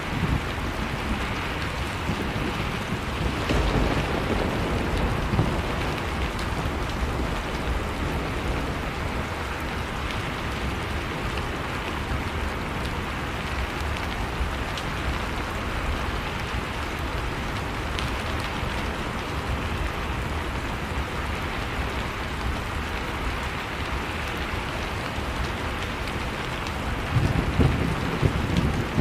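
Heavy rain falling steadily, an even hiss of rain on surfaces. Low rumbles swell up about four seconds in and again near the end.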